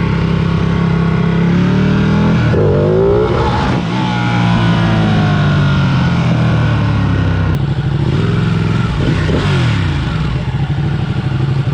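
Sport motorcycle engine running, its revs rising and falling about two and a half seconds in and again about nine seconds in.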